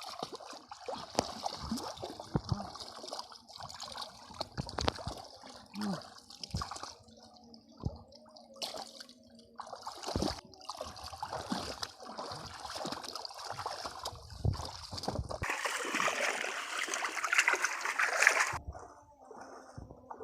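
Shallow water splashing and sloshing, with many uneven small splashes and knocks. About three-quarters of the way through comes a louder stretch of churning water that stops suddenly.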